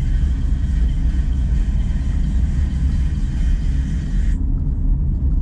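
Steady low road and engine rumble inside a moving car's cabin. A fainter, higher hiss layered over it cuts off abruptly about four seconds in.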